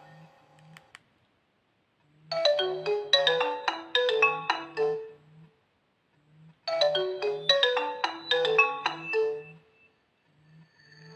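Nokia Asha 210 ringtone playing: a quick melody of short notes over a pulsing bass line, about three seconds long, played twice with a short silent pause between.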